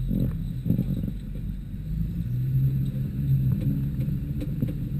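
Volkswagen T3 Syncro van's engine running as the van drives over rough off-road ground, heard from inside the cabin as a steady low rumble. It grows stronger for about a second midway through.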